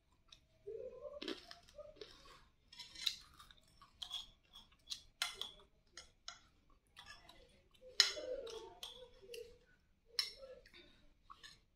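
Metal spoon scraping and clinking against a ceramic plate of fried rice in a series of short, irregular strokes, with chewing between scoops; the loudest clink comes about eight seconds in.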